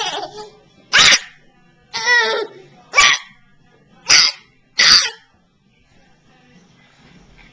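A baby laughing in short separate bursts, about one a second, ending in a couple of seconds of quiet near the end.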